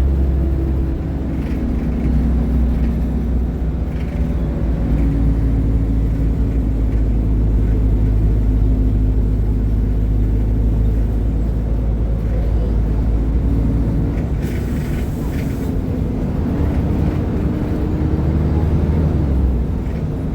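Diesel engine of a Mercedes-Benz O500UDA bi-articulated BRT bus running steadily, its note shifting slightly. A short hiss comes about fifteen seconds in.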